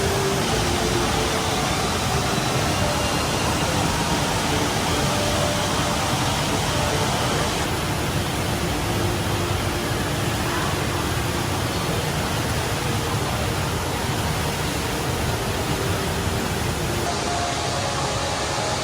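Steady rush of water from the Rain Vortex, a tall indoor waterfall falling through an opening in a glass dome, with a faint hum of people in the background.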